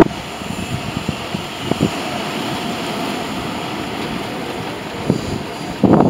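Airbus A320 on final approach with gear down, its jet engines making a steady rushing drone. Wind buffets the microphone in loud gusts near the end.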